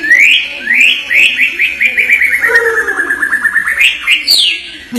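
White-rumped shama (murai batu) singing: a few quick rising whistled notes, then a fast trill that slides gently down in pitch, and rising whistles again near the end.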